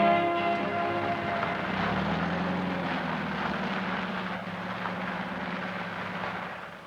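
Propeller aircraft engine droning steadily, fading away near the end, as music dies out in the first second or two.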